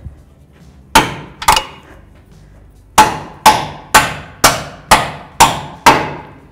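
Rubber mallet striking up at a control-arm bushing bolt to drive it through the subframe and front bushing: nine sharp blows, a pair and then, after a short pause, seven in a steady run about two a second.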